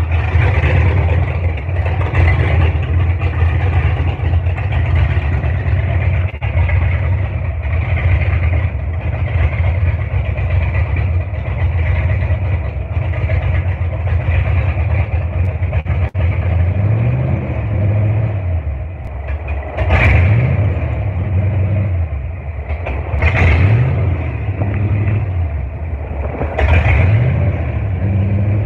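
Loud car engine with distributor ignition, running steadily and then revved up and let fall back four times in the second half, while the distributor rotor's position is checked with a timing light as the revs rise.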